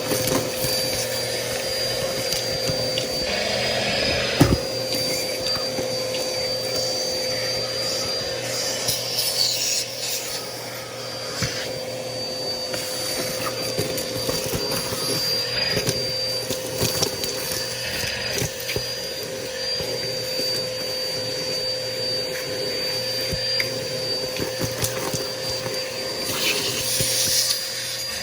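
Bissell PowerForce Helix upright vacuum running steadily with a constant motor whine, its brush roll rubbing and scraping over the floor as it is pushed, with scattered small clicks and a sharp knock about four seconds in.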